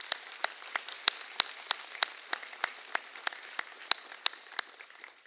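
An audience applauding: a dense patter of clapping with sharper single claps standing out, stopping abruptly near the end.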